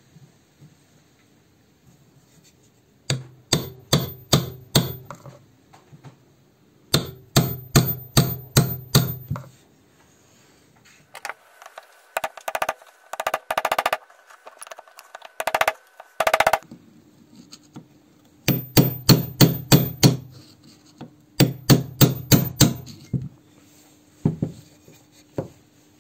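Hammer driving a steel punch and chisel against the fluid reservoir mounting of a cast-iron brake master cylinder, in bursts of about six to eight sharp, ringing blows, with a quicker run of lighter taps midway and two single knocks near the end. The blows work the reservoir and its fixing loose from the cylinder body.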